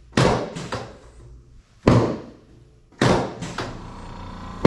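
Chiropractic drop table's pelvic section dropping during adjustments: four sharp clacks one to two seconds apart, some followed by one or two smaller knocks.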